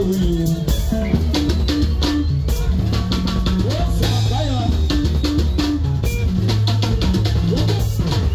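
Live Zimbabwean sungura band music: a busy electric bass line over a drum kit beat, with electric guitar.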